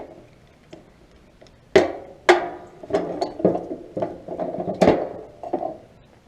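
A string of sharp knocks and clanks, irregularly spaced: two strong hits about two seconds in, the second ringing briefly, then several lighter knocks and a loud one near the five-second mark.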